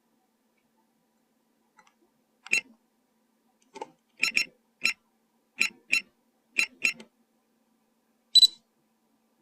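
A series of about ten short, sharp clicks or taps at irregular spacing, several in quick pairs, the last one near the end the loudest.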